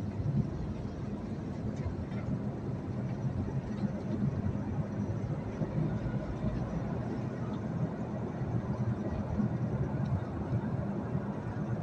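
Steady road and engine noise of a moving vehicle in city traffic, heard from inside the cabin.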